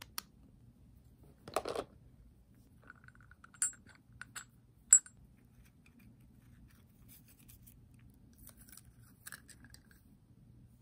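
Handling of a glass reed-diffuser bottle and its plastic cap: scattered small clicks and clinks, with one sharp click about five seconds in. Then light scratching and ticking as a bundle of thin wooden reed sticks is picked up and slid into the bottle's neck.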